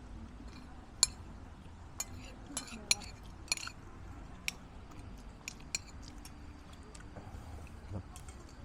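Spoons clinking against plates and bowls while eating, a scattering of short sharp clinks, the loudest about a second in and just before three seconds, thinning out after about six seconds.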